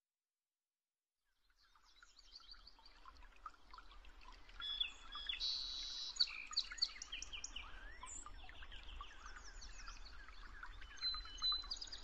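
Several songbirds chirping and trilling in a busy mix of short calls, fading in after about two seconds of silence, over a faint low rumble of outdoor ambience.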